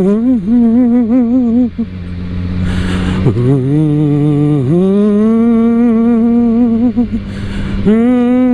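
A man humming a tune with heavy, exaggerated vibrato over the steady running of a Yamaha YZF-R1 motorcycle's inline-four engine.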